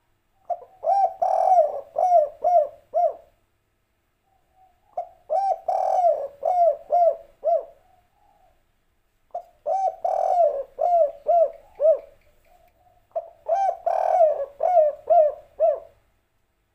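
Spotted dove cooing: four phrases of quick, repeated coos, each about three seconds long, with short pauses between. This is the 'derkuku kuk 3' song type in a deep, mature voice, as Indonesian keepers grade it.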